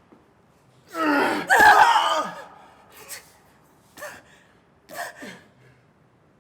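A person gasping: a long, loud gasping breath about a second in, then short sharp gasps about once a second, each dropping in pitch.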